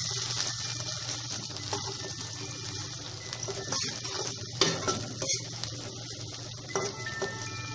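Sliced onions and bay leaves sizzling in hot oil in an aluminium kadai while a metal spoon stirs them, scraping and clinking against the pan, with one sharper knock about halfway through.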